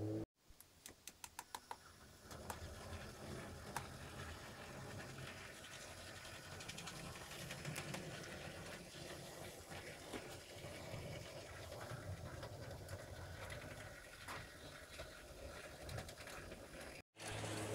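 H0-scale model train running on the layout: a small electric motor hums steadily while the wheels click over the rail joints. Near the start comes a run of evenly spaced clicks, about four a second.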